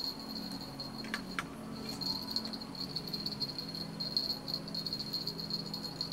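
Bite bell on a fishing rod jingling and rattling as the rod is worked against a hard-pulling hooked fish, with a couple of sharp clicks about a second in. Crickets chirr steadily behind it.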